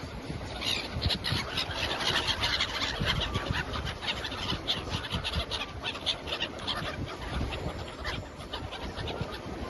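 A flock of seabirds calling, many short cries overlapping in quick succession, starting just under a second in. A low rumble runs underneath.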